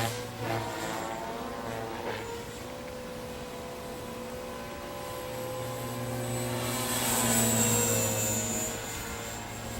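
FORZA 450-size radio-controlled model helicopter in flight, its motor and rotor whine and hum steady, then swelling louder and shifting in pitch around seven to eight seconds in as it passes closer.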